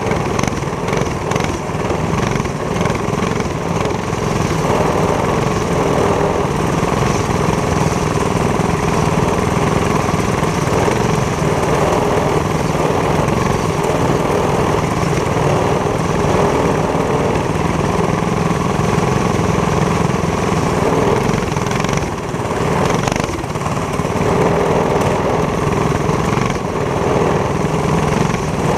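Racing go-kart engine running hard at speed, heard close up from the driver's helmet, with a brief dip in loudness about three-quarters of the way through.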